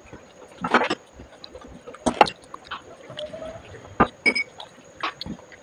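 Close-up eating sounds of someone eating momos: a few short, wet mouth smacks and chewing clicks, roughly one every second.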